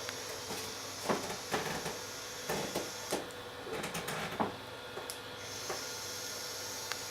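A run of short, irregular rustles and knocks from something being handled, over a steady background hiss.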